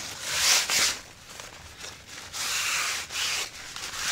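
A cloth wiping dried mud off a tent's fabric skirt, rubbing in several short strokes with brief pauses between them.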